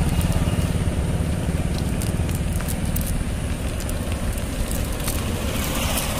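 A motor running steadily with a low, pulsing rumble, the loudest sound throughout. Over it come faint crackles and rustles as a cast net is gathered up on gravel.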